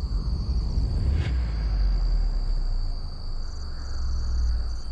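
Insects, likely crickets, keep up a steady high-pitched trill over a deep low rumble.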